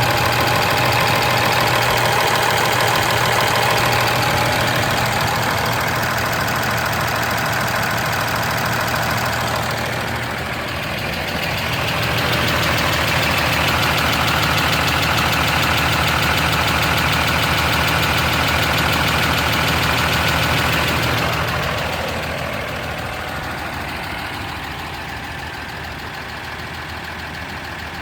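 2013 Ram 2500's 6.7 L Cummins inline-six turbo-diesel running with a steady, rapid ticking. The tick comes from exhaust valve lash far out of specification. The engine tone shifts about ten seconds in and the sound grows quieter about two-thirds of the way through.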